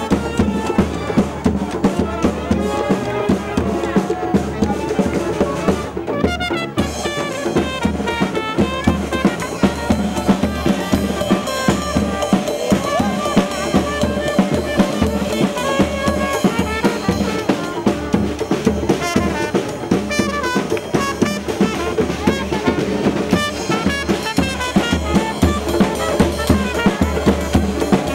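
Brass band playing a lively tune over a steady beat on bass drum and snare.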